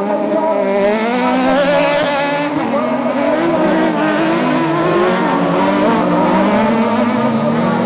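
Several autocross buggy race engines at high revs together, their pitches rising and falling as they accelerate and lift.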